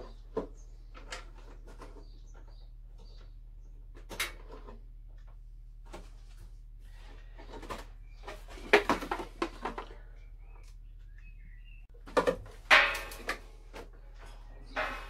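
Clicks, knocks and clatter of a hot tub's plastic control-unit housing being handled and worked on with a screwdriver, loudest in two clusters about nine and thirteen seconds in.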